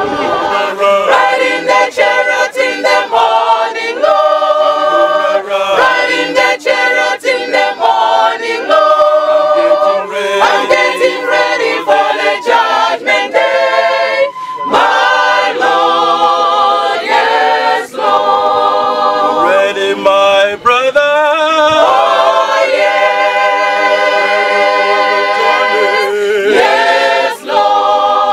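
Mixed choir of men's and women's voices singing a cappella in harmony, holding chords in phrases with brief pauses between them.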